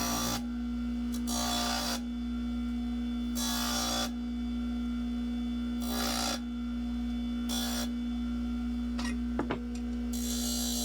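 Bench sander running with a steady motor hum, as a workpiece is pressed against the abrasive in short passes, each giving a scraping sanding noise, every second or two.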